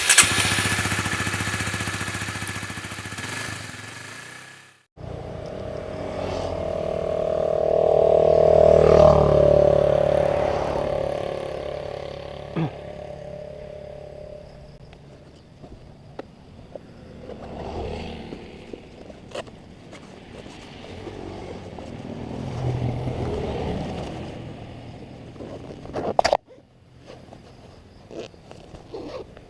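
Motorcycle engine passing by: it grows louder, peaks about nine seconds in with a drop in pitch, then fades away. It comes after a loud, harsh noise that cuts off abruptly about five seconds in.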